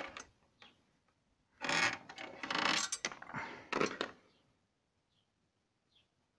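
Small metal parts clinking and rattling as they are handled, in three or four short bursts over about two seconds, then quiet.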